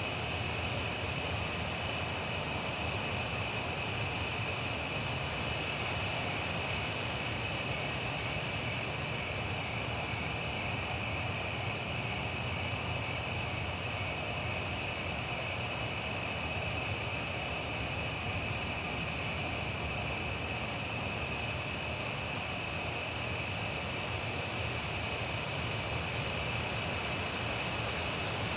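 Nighttime residential ambience: crickets chirping in a steady high trill, over a constant hush of wind through trees and the low rumble of distant traffic.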